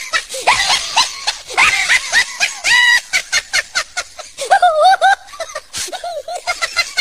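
High-pitched laughter and shrieking voices, with a burst of quick, rapid-fire cackling about three seconds in.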